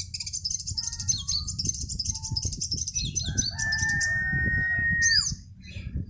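Sogok ontong (spiderhunter) calls: fast high-pitched chattering for about three seconds, then a long steady whistle that drops off sharply about five seconds in. A low rumble runs underneath.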